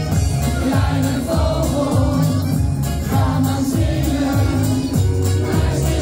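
Dutch-language pop song: a singer over a steady beat and heavy bass.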